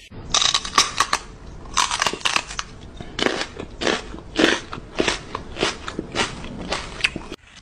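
A woman making playful nibbling, munching noises with her mouth against a puppy's paw: a string of short crunchy mouth sounds, about two a second, that stops shortly before the end.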